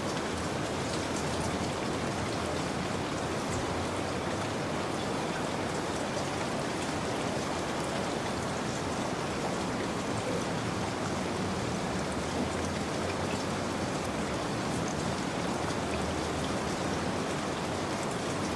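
Steady rainfall: an even rush of rain with faint scattered drop ticks, unchanging throughout.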